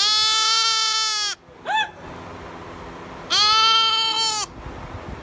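Sheep bleating loudly: two long, high bleats with a short bleat between them.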